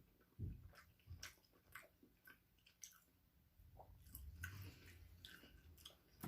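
Quiet close-up chewing and mouth sounds: soft wet clicks and smacks a couple of times a second, with a faint low rumble in the second half.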